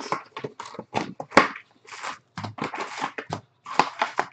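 Plastic shrink-wrap crinkling and cardboard card boxes being handled as sealed hobby boxes of baseball cards are opened. A quick run of short crackles and rustles, with one sharp snap about a second and a half in.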